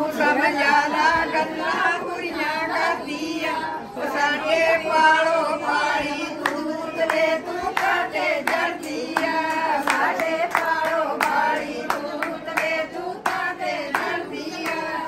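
Group of women singing together, with hand claps keeping a steady beat.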